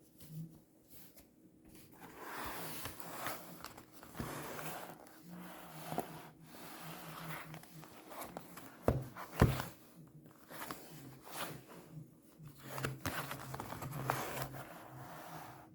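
Baseball card pack wrapper being torn open and crinkled, with cards rustling as they are handled. Two sharp taps about nine seconds in are the loudest sounds.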